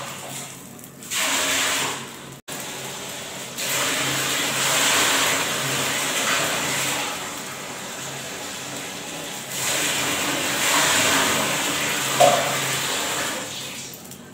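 Hand mixing spiced pakoda batter in a steel plate: rubbing, squishing noise that comes and goes in stretches, with a short clink near the end.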